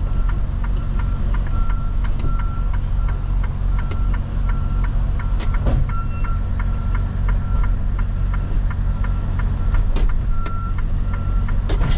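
Semi truck's diesel engine running low and steady while the day cab reverses slowly under a trailer to couple, with a short high beep repeating about twice a second. A couple of sharp knocks sound partway through.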